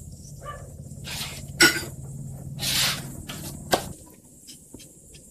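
Kitchen clatter at a stove with a lidded pan. There is a sharp clack about a second and a half in, a short rushing hiss around three seconds, and another click near four seconds. Right after that click, a low steady hum stops.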